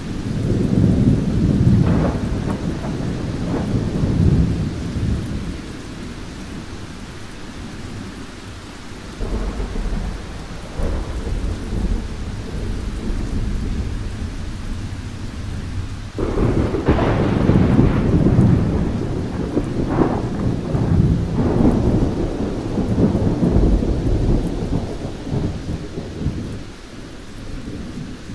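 Thunderstorm: deep rolling thunder over steady rain. The rumble swells in the first few seconds, eases, then a louder peal breaks in suddenly about sixteen seconds in and rumbles on before dying down near the end.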